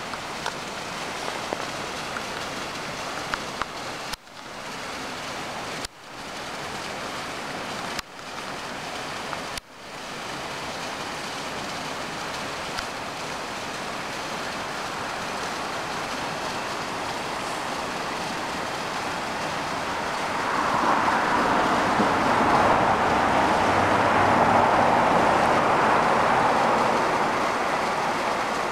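Steady rush of water from a mostly frozen waterfall, still running under and behind the ice. The sound dips out briefly four times in the first ten seconds, and swells louder for the last several seconds.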